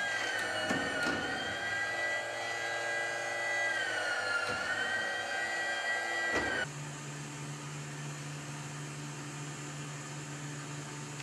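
Electric motor-driven hydraulic pump of an aircraft landing-gear and flap training rig whining steadily, its pitch sagging twice as the system takes load, with a few clicks near the start. It cuts off abruptly about six and a half seconds in, leaving a low steady hum.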